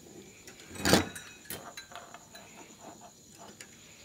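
A short knock or clatter of tools being handled on a workbench about a second in, followed by faint small clicks and handling noises.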